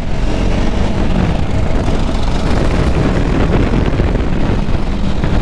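Triumph Speed 400's 398 cc single-cylinder engine running at a steady cruise on the road, with wind rushing over the microphone.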